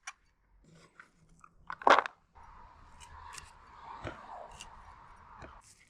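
Knife chopping crunchy raw vegetables on a cutting board: a few sharp chops, the loudest about two seconds in, then a stretch of steady crunching and scraping.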